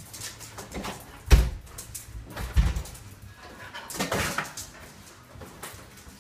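Dobermans jumping up on a person at a door: a few heavy thumps of paws and bodies landing on a hard tiled floor and knocking against the door, with scuffling in between. The loudest thump comes about a second and a half in, another a little after two and a half seconds.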